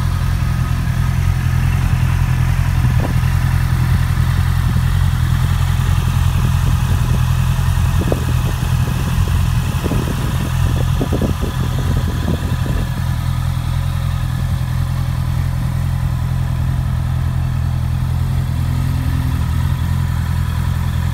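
2019 Honda CB650R's inline-four engine idling steadily, with a few light ticks around the middle.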